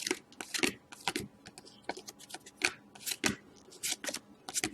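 Hockey trading cards being flipped and slid against one another in the hand: an irregular run of short, papery swishes and flicks.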